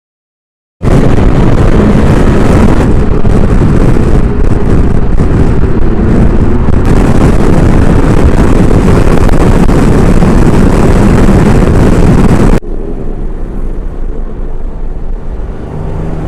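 Motorcycle ride at speed: loud wind rush buffeting the microphone. About 12 seconds in it cuts off sharply, leaving quieter steady road and engine noise.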